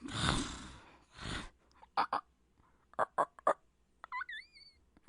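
A person making monster noises with their voice. First a loud, breathy, rasping growl, then a shorter one. Then a few short sharp clicking squeaks and a high squealing cry that rises and wavers in pitch.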